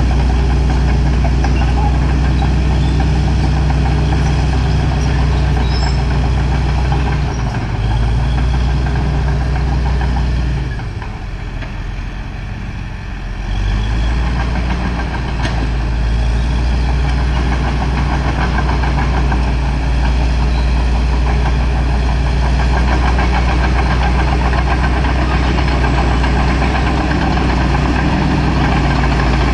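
Caterpillar D4H crawler dozer's four-cylinder diesel engine running steadily under working load as the dozer moves and pushes soil. The engine sound drops for about three seconds around the middle, when the dozer is at the far end of its run, then comes back as strong.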